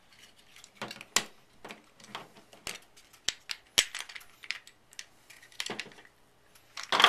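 Light clicks and taps of a clear plastic gallium spoon mold being pried apart by hand, its plates and metal bolts knocking together. A louder cluster of clatter comes near the end.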